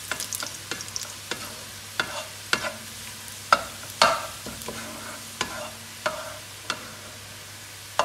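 Sliced onions frying in hot oil and ghee, frying to brown, while a plastic spatula stirs them and scrapes and taps against the coated pot. The taps are irregular, the loudest a little past three and a half seconds and at four seconds in.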